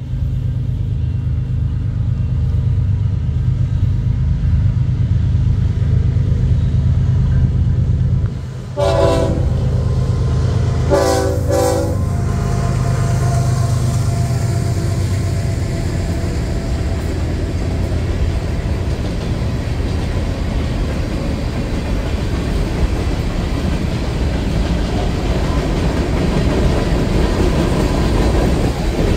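Two BNSF GE diesel-electric freight locomotives, an ES44C4 leading and a C44-9W trailing, approach and pass with a steady low engine drone. The lead unit's air horn sounds a short blast about nine seconds in and a longer one about two seconds later. A string of covered hopper cars then rolls by with a steady wheel-on-rail rumble.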